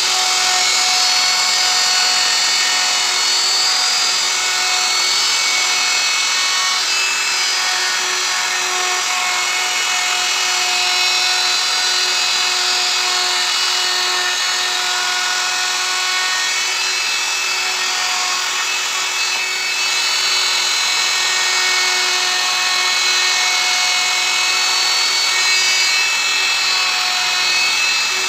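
Hand-held plunge router running steadily with a high whine, its bit cutting curved grooves into an MDF board.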